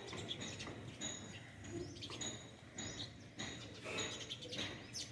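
Small birds chirping, with short high notes repeated every second or so.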